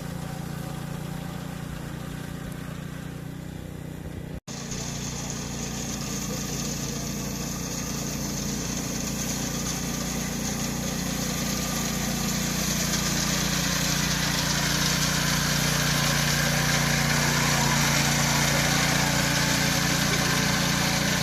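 An engine running steadily. A brief dropout about four seconds in; after it the sound is brighter, with more hiss, and grows gradually louder.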